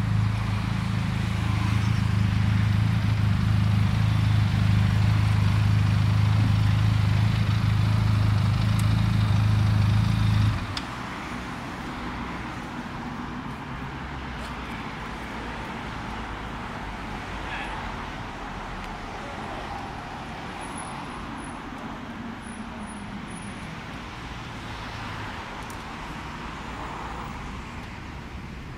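Benelli TRK 502 X's parallel-twin engine running steadily, which stops abruptly about ten seconds in. After that, only faint street traffic is heard.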